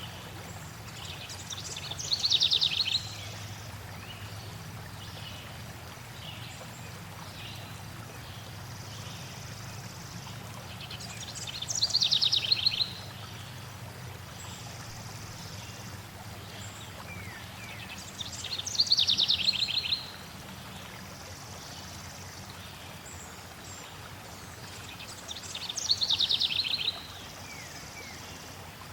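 A songbird sings the same short, quick song four times, about every seven seconds, each a rapid run of notes that falls off at the end. Beneath it runs a steady wash of flowing water.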